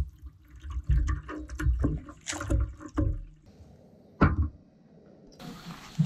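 Water glugging as it is poured from a plastic bottle into a metal mug, for about three seconds. A single sharp knock follows a little past four seconds in.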